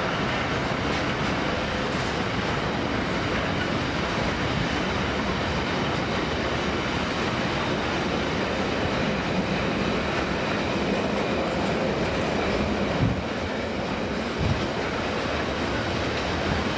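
A train running past on the rails: a steady rumble and rush of wheels and wagons, with a couple of short thumps near the end.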